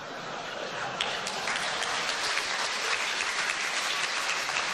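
Audience applauding, the clapping swelling sharply about a second in and then holding steady.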